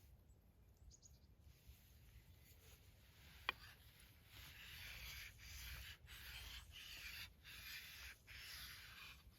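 Faint scraping of a nata blade drawn along a whetstone, starting about four seconds in, in long strokes with brief breaks between them. A single sharp click comes just before.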